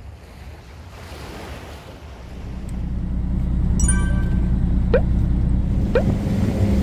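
Soft wash of surf on a beach, then a fishing boat's engine rumbling in low, rising to a steady drone about two and a half seconds in. Over it come a short chime near the four-second mark and two quick rising blips, the sound effects of a subscribe-button animation.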